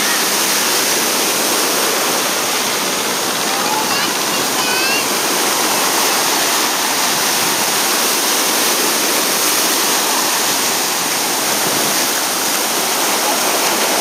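Ocean surf breaking and washing in the shallows, a loud, steady rushing roar.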